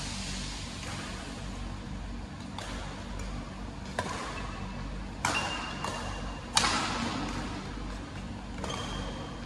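Badminton rackets hitting a shuttlecock in a doubles rally: about six sharp cracks at irregular spacing, the loudest about two-thirds of the way through. A couple of short high squeaks follow some of the hits, over a steady low hum of the hall.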